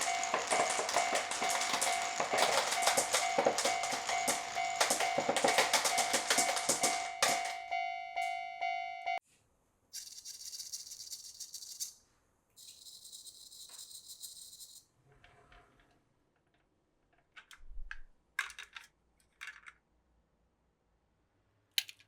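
Many marbles clattering and rolling along a wooden marble run in a dense rattle, with a steady ringing tone over it that runs on alone and cuts off about nine seconds in. Two hissing rushes follow, then a few scattered clicks of single marbles.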